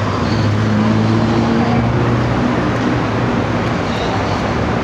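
City street traffic noise. A vehicle engine hums steadily for the first three seconds or so.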